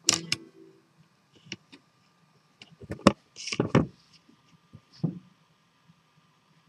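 Cables being handled and unplugged behind a computer monitor: scattered clicks and knocks, the sharpest click about three seconds in, then a brief rustle and a thump.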